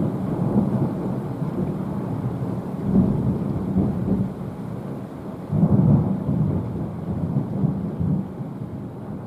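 Rolling thunder rumbling continuously, swelling sharply about five and a half seconds in, then dying down.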